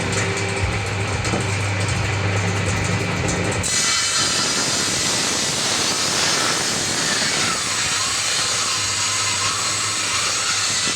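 Power tool motor running with a steady hum. About four seconds in, a loud hissing noise of cutting wood takes over and lasts until near the end.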